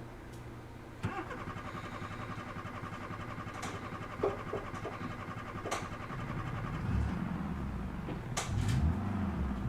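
An old car's starter cranking the engine with a fast, even pulsing from about a second in. In the last few seconds the engine catches and begins to run and rev, louder and deeper.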